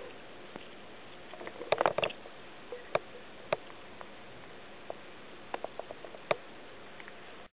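A cat biting and mouthing a stalk of itadori (Japanese knotweed) on gravel: a quick burst of crisp clicks and crunches about two seconds in, then single clicks and a short run of them near the end, over a steady background hiss.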